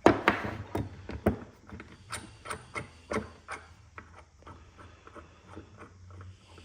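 Small metal parts of a car's manual shifter assembly clicking and clinking as they are pulled apart and set down by hand. A sharp knock comes right at the start, another about a second and a half in, then scattered lighter clicks.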